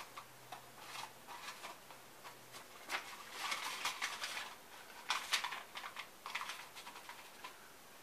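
Paper coffee filter rustling and crinkling as it is pressed into a plastic filter basket, with scattered light clicks of the basket being handled. The rustling is loudest in the middle.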